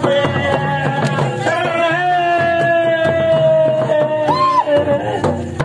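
Karma folk dance music: a singer holds one long note that sinks slowly, with a brief upward flick near the end, over steady drum beats.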